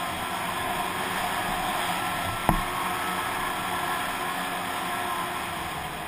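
Snowmobile engine running steadily under way, with a rushing noise of wind and track. A single sharp knock sounds about two and a half seconds in.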